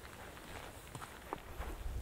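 A hiker's footsteps on a path, a series of short steps at walking pace.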